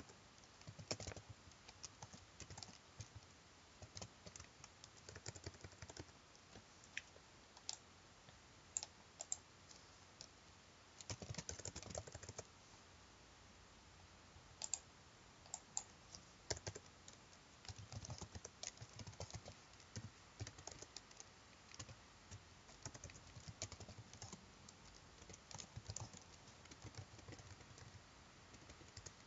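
Faint typing on a computer keyboard: irregular runs of quick keystrokes with short pauses between them.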